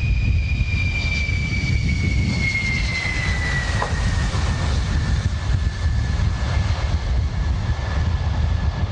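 F-15 Eagle's twin jet engines at takeoff power as the fighter lifts off: a steady, heavy rumble under a high whine that falls slowly in pitch.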